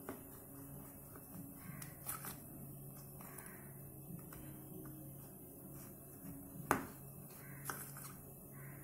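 Quiet taps and scrapes of a knife scoring lines into soft Mysore pak in a steel plate, with one sharper click about two-thirds through. A low steady hum runs underneath.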